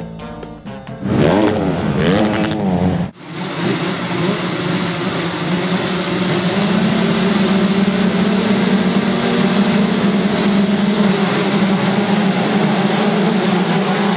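A full field of two-stroke motocross bikes, many engines revving together at the start gate and then pulling hard into the first turn, a dense, steady drone of engines. A second of music opens it, and the engines come in with wavering revs before a sudden cut about three seconds in.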